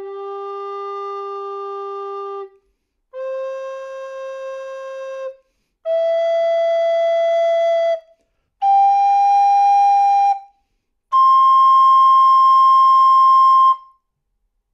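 Eagle alto recorder with its new head joint playing five long held notes that climb in a major arpeggio, each louder than the last.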